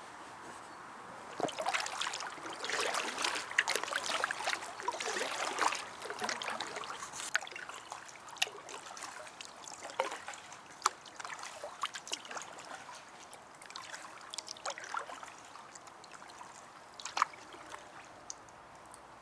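Water trickling and splashing, busiest in the first few seconds, then thinning to scattered sharp drips and ticks.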